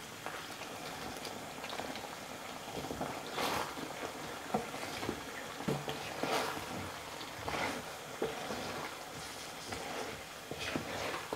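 Chicken and vegetables in thick red sauce stir-frying in a frying pan: a steady bubbling sizzle, broken by irregular scrapes and knocks of a wooden spatula against the pan every second or so.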